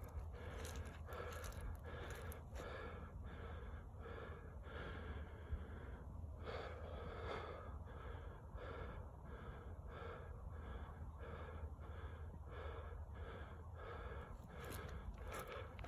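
A person breathing hard close to the microphone, quick rhythmic breaths at about two a second, over a steady low rumble.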